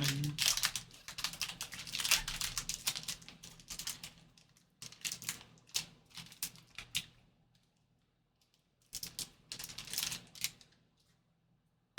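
A pack of trading cards being opened and handled: rapid crisp crackles and clicks from the wrapper and cards for about seven seconds, then a shorter burst after a pause.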